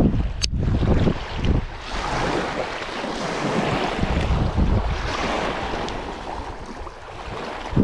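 Strong wind buffeting the microphone in gusts, over small waves lapping and washing onto the shore.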